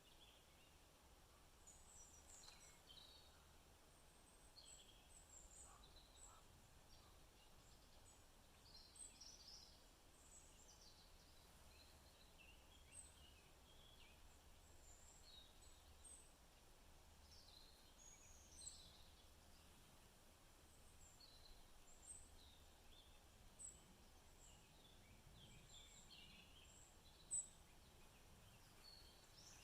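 Faint woodland birdsong: several birds giving short chirps and calls, one repeating a brief high note every second or two, with a single sharp tick near the end.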